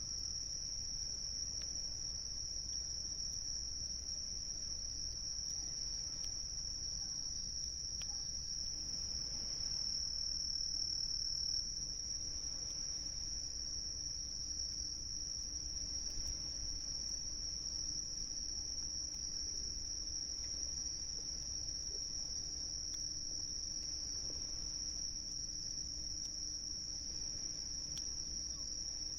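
Crickets trilling in a steady, unbroken high chorus that never pauses.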